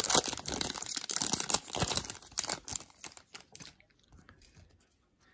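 Foil trading-card pack wrapper crinkling and tearing as it is ripped open by hand. The crackle thins out after about three seconds and dies away to quiet.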